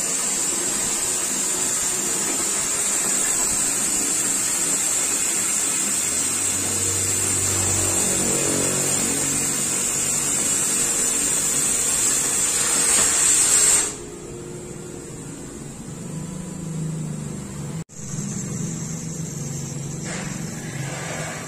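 Oxy-fuel cutting torch on a CNC gas cutting machine hissing steadily. The loud hiss cuts off abruptly about two-thirds of the way in, leaving a lower hum; after a brief break a quieter hiss comes back near the end.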